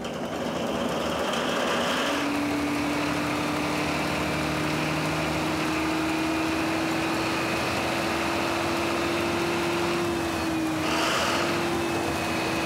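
Large diesel engine that drives a showboat's paddle wheel, running steadily in its engine room: an even machinery noise. A steady hum joins it about two seconds in.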